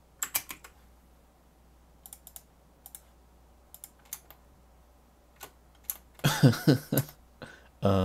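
Computer keyboard keys tapped in short runs of a few strokes, separated by pauses of about a second. About six seconds in comes a louder, brief wordless vocal sound, like a hum or mutter, and another short one near the end.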